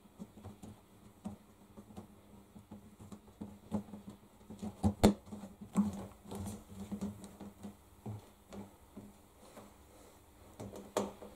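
Rubber door seal of a front-loading washing machine being pressed and worked by hand onto the rim of the drum opening: scattered soft rubbing and light clicks, with one sharper knock about five seconds in.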